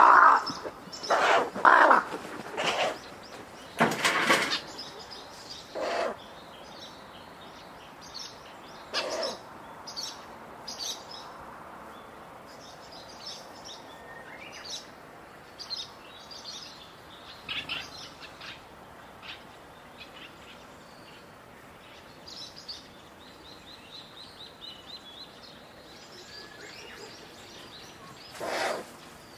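Ural owl chick giving short, breathy hissing 'pishu' calls: a quick run of them at first, then spaced out, with one more near the end. Small birds chirp faintly between the calls.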